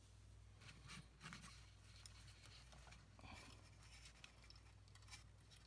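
Near silence with faint scratchy rustles and light clicks, several times, over a faint steady low hum: fingers handling thin battery wires on a sheet of paper.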